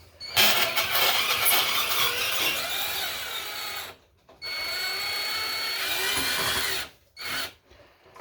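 Power drill/driver unscrewing the fasteners of a saddle valve clamped on a water pipe. It runs in two long bursts of about three and a half and two and a half seconds, its pitch sliding as the speed changes, then gives one short blip near the end.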